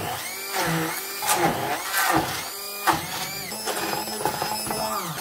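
Electric stick blender running in a bowl of torn bread, eggs and sugar, its motor whine rising and falling as the load changes while it purées them into batter, with a few knocks.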